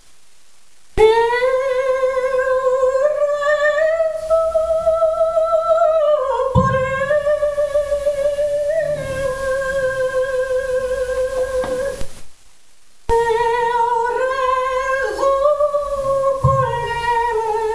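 A woman singing solo, holding long notes with a wide vibrato, with two short pauses.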